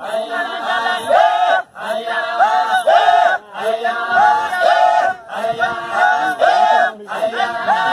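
A group of voices chanting together, repeating one short sung phrase over and over, about once every second and a half to two seconds.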